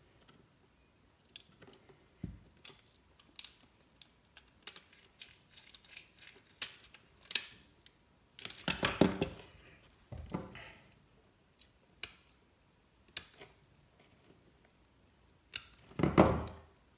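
Scattered light clicks and taps of small hand tools working on wire ends and a circuit board's screw terminals, with louder clattering bursts around the middle and near the end.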